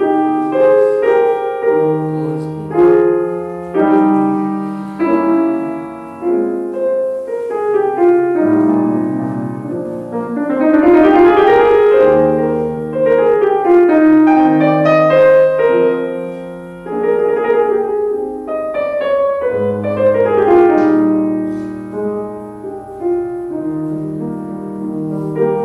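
Bösendorfer grand piano played solo in a classical piece, with flowing repeated figures and a rising run that swells to its loudest about halfway through before falling back.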